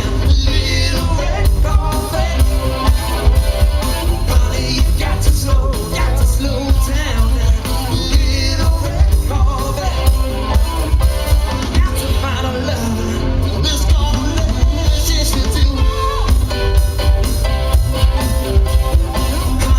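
Live band playing loud amplified pop-rock music with a heavy bass and a steady drum beat, a singer's voice coming in at times.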